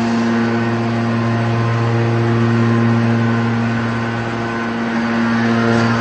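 Scrap metal baler's hydraulic power unit running with a steady droning hum.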